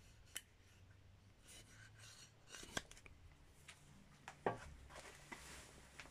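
Quiet handling of a billet aluminium suspension arm with its steel pivot bolt: light rubbing and a few scattered clicks, with a sharper knock about four and a half seconds in.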